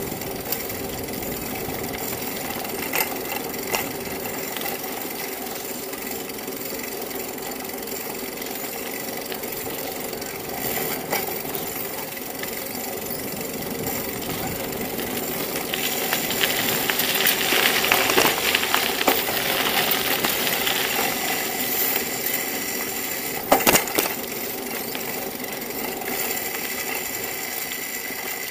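Steady rattle and road noise of a bicycle riding along, as heard from a camera mounted on the bike, with a few sharp knocks from bumps. A hiss grows louder about halfway through, then eases off.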